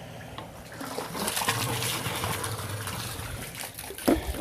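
Newly installed sump pump running after its float switch kicked it on, water gushing as it is pumped out of the pit, over a steady low motor hum. A sharp knock sounds near the end.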